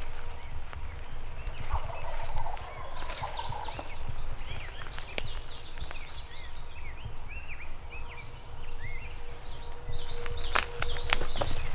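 A wild turkey gobbler gobbling once, a short rattling call about two seconds in, followed by songbirds singing high chirping phrases; near the end come a few sharp snaps, like footsteps on sticks on the forest floor.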